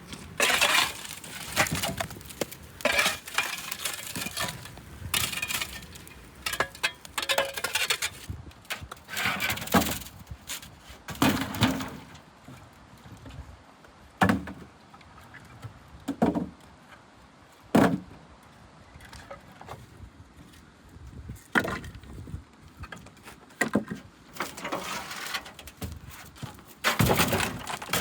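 Irregular knocks, clinks and scrapes of objects being handled. The sounds come thick and fast for the first ten seconds, then as single sharp knocks every couple of seconds, with another busy stretch near the end.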